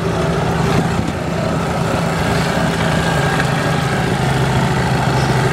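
Golf cart running across grass: a steady low motor drone with rumble from the ride, its pitch settling a little lower about four seconds in.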